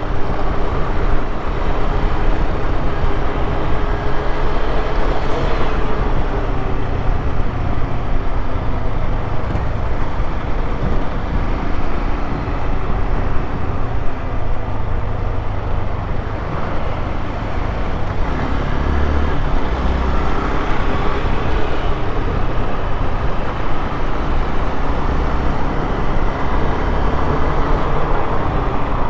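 Honda XRE 190's single-cylinder engine running on the move, its pitch rising and falling with the throttle, over a steady low rumble.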